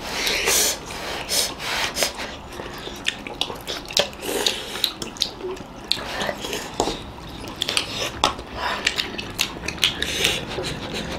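Spoons and forks clicking and scraping against soup bowls, with slurping of hot broth and chewing of dumplings; many short clicks throughout.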